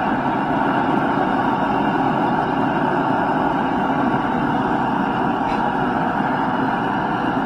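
Steady rushing noise of a home knife forge running, unchanging throughout.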